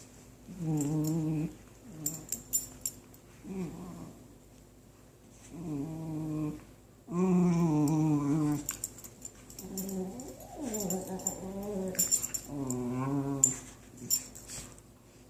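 Dogs making drawn-out, wavering growl-like vocal noises while playing, about seven in a row, each lasting around a second, with light clicks in between.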